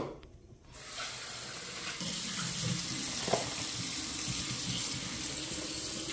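Kitchen faucet running into a saucepan of small potatoes in a stainless steel sink, a steady splashing rinse that starts about a second in. A light knock of the pot comes partway through.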